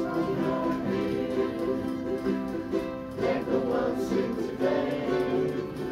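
A ukulele group strumming chords together in a steady rhythm, with voices singing along.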